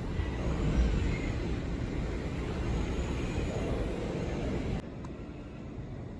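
Hurricane wind blowing in gusts, a rumbling rush with heavy buffeting on the microphone, which drops abruptly to a quieter rush near the end.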